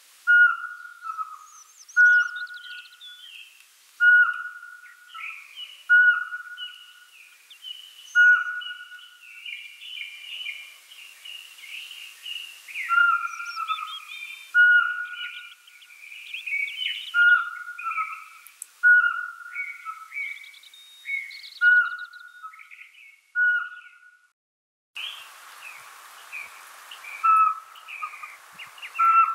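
Small owl giving a short, clear whistled note over and over, about one every two seconds. Higher chirping and twittering from other birds runs underneath.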